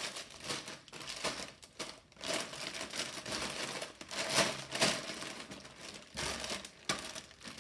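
Clear plastic bags full of Lego Technic pieces crinkling as they are picked up and shifted about, in irregular bursts with the loose parts inside clicking; the loudest handling comes about four to five seconds in.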